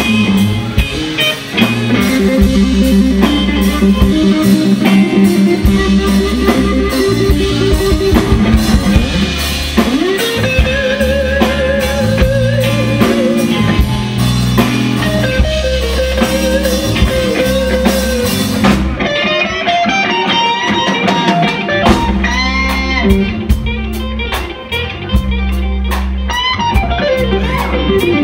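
Live band playing an instrumental passage: an electric guitar lead with bent notes and sustained notes held with vibrato, over bass guitar and a drum kit.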